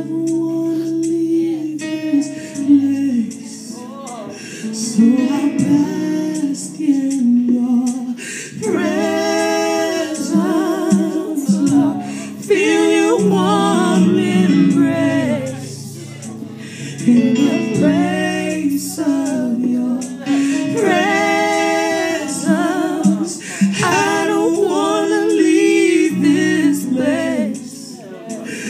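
Worship song: sung phrases with long held, wavering notes over instrumental backing.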